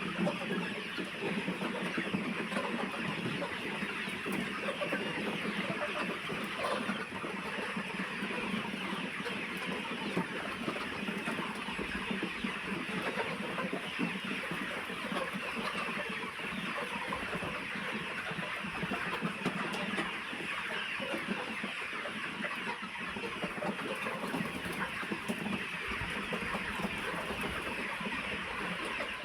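A large flock of chickens in a poultry house, many birds clucking and calling at once in a dense, steady chatter.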